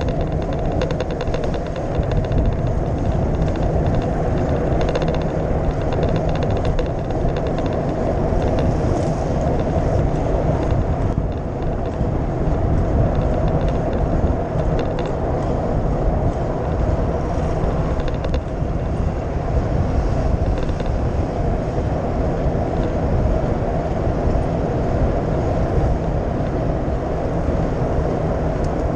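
Wind rushing over the microphone of a camera on a moving bicycle, mixed with tyre rumble on the asphalt bike path: a steady, loud noise with no break.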